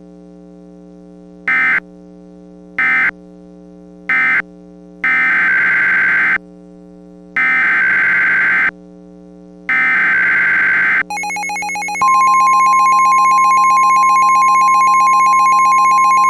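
NOAA Weather Radio alert signals: three short SAME data bursts, the end-of-message code, then three longer SAME header bursts announcing a new alert. About 11 s in, a buzzy tone starts, and about a second later the loud, steady weather radio warning alarm tone joins it. A constant low hum runs underneath.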